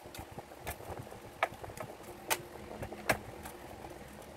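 Phillips screwdriver and small screws clicking against a bread maker's metal base plate as the screws are taken out: four sharp ticks about a second apart, the last the loudest.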